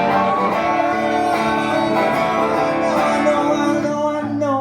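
Live music: a guitar playing the song's accompaniment with a man's sung vocal line over it.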